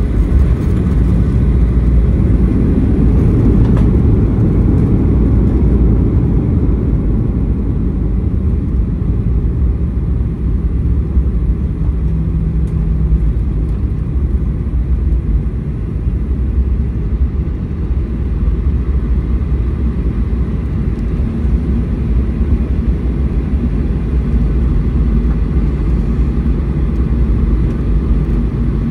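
Cabin rumble of a Boeing 737-800 rolling out on the runway after landing, heard from a window seat over the wing: its CFM56-7B engines and the wheels on the tarmac make a steady low rumble. The rumble is strongest for the first few seconds and then eases a little as the jet slows.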